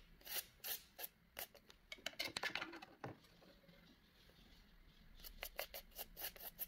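Faint scraping of a metal palette knife spreading thick acrylic paint across paper, in a series of short, quick strokes: a cluster in the first half and another near the end.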